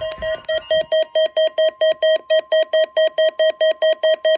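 Weather alert radio receiver sounding its alarm: a fast, even beeping, about six beeps a second, over a steady high tone. The receiver has been set off by the NOAA Weather Radio required weekly test.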